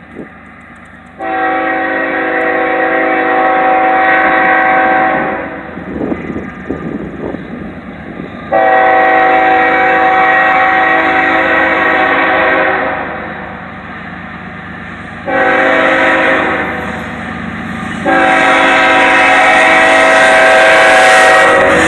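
CN diesel locomotive's air horn sounding the grade-crossing signal, two long blasts, one short and a final long one held to the end, each blast a chord of several tones. Under the horn, the locomotive's engine and the train's rumble grow louder as it nears and reaches the crossing.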